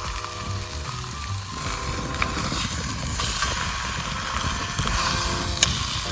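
Background music in short phrases of held notes, over a steady noisy hiss and crackle, with one sharp click near the end.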